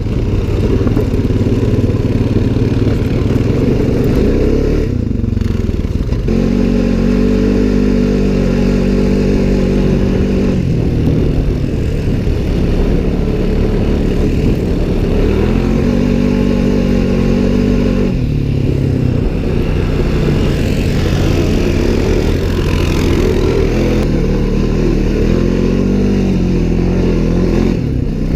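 Honda Pioneer side-by-side's engine running under load while driving through snow, its pitch rising and falling as the throttle is worked in three longer pushes.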